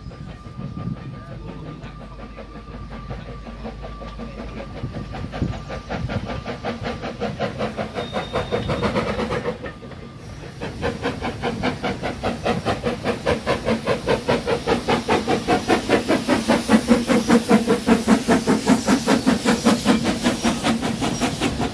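Narrow-gauge steam locomotive working up a gradient into the station with its train, its exhaust chuffing in a steady rhythm with steam hiss, growing louder as it draws near and runs alongside.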